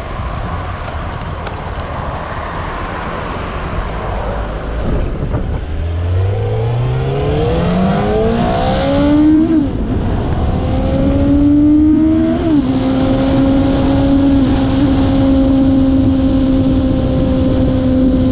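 Suzuki GSR600 inline-four engine accelerating hard through the gears. Its pitch climbs steadily, with an upshift about halfway through and another about three seconds later. It then runs at a steady pitch at cruising speed, under heavy wind noise on the microphone.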